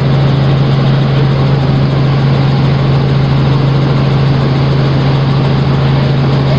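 Helicopter in flight, heard from inside the cabin: a steady, loud drone of engine and rotor with a strong low hum.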